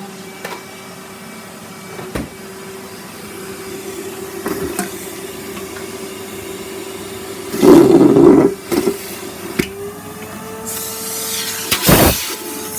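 Henry canister vacuum cleaner running with a steady motor hum that rises slightly in pitch after the middle. There are two loud rattling, sucking bursts as the nozzle picks up debris, one past the middle and one near the end, and a few short knocks of the nozzle against surfaces.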